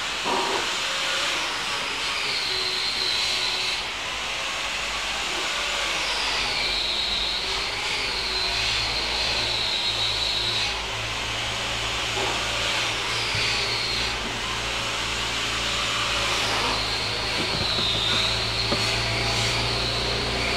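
Steady rushing, machine-like noise with a high whine that comes and goes several times, wavering in pitch, and a low hum joining about a third of the way in.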